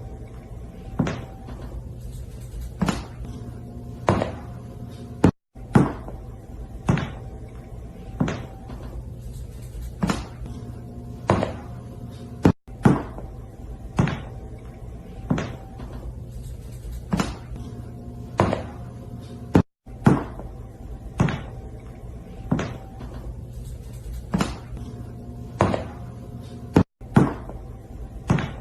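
Sharp knocks or bangs, irregular, about one a second, over a steady hum. The same few seconds of knocking seem to repeat about every seven seconds, each repeat broken by a short dropout.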